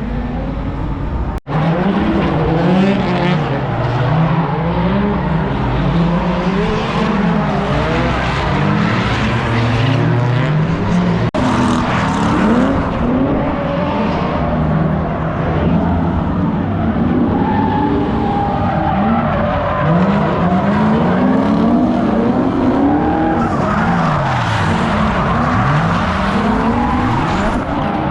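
Vehicle engines revving hard and repeatedly, the pitch rising and falling, with tyre squeal, as in drifting. The sound drops out for an instant twice.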